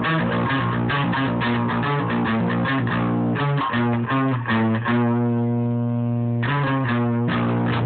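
Electric guitar being played: a quick run of picked notes, then a chord held for about a second and a half starting about five seconds in, then picking again.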